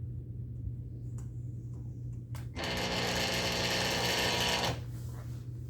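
Old variable-speed scroll saw's motor running for about two seconds with a steady buzzing whir, starting abruptly just after a click and stopping abruptly, in a saw that has been tripping its built-in breaker.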